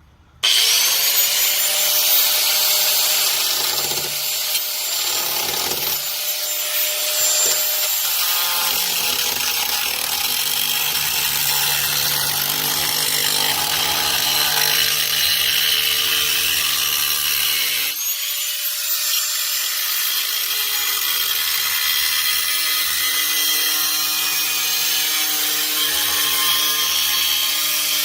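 Electric power saw cutting through the sheet-metal rear floor of a third-generation Camaro, with a high whine and a rasping cut. It starts suddenly, runs steadily, and about two-thirds of the way through spins down briefly and winds back up to speed.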